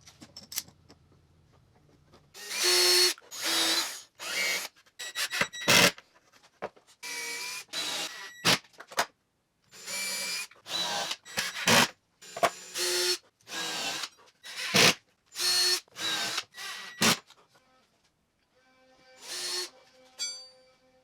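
Power drill run in about a dozen short bursts of a second or less, its motor whine changing pitch from burst to burst, with a few sharp knocks in between.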